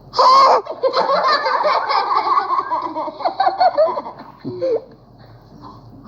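A short, sharp sneeze at the start, followed by a few seconds of high-pitched, choppy giggling laughter.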